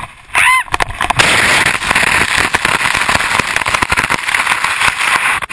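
Snowboard riding over hard, icy snow: a loud crackling scrape that starts about a second in and cuts off suddenly near the end. It is preceded by a brief pitched squeal.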